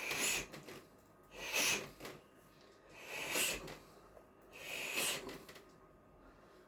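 A person breathing heavily and loudly: four forceful breaths about a second and a half apart, then quiet breathing.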